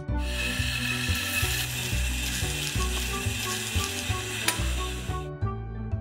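Sniper electric coffee grinder with 48 mm conical burrs switched on, grinding coffee beans with a steady whirring rasp for about five seconds before cutting off. Background music with a steady bass beat plays underneath.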